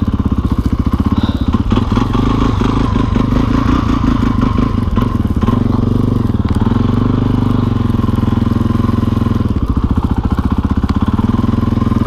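Dirt bike engine running steadily at low revs as it is ridden through deep snow, its individual exhaust pulses plainly heard.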